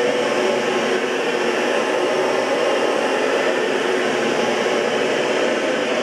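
Oreck XL21 upright vacuum cleaner running steadily, a constant motor and airflow noise with a humming tone in it.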